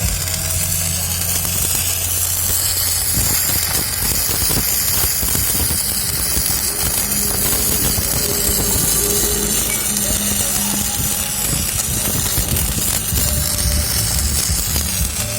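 Electric arc welding: the arc's steady crackling hiss runs on without a break.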